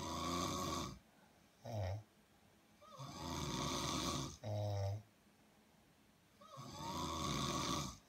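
A person snoring in slow, even cycles: each long, noisy breath is followed by a short, low snort, three times over.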